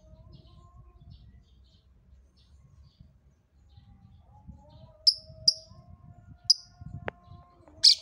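A lovebird giving short, sharp, high-pitched chirps: four single calls in the second half, the last the loudest.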